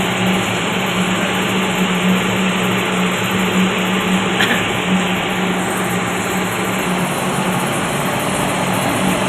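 Ship's emergency diesel generator engine running steadily just after a battery start: a loud, even engine noise with a constant low hum.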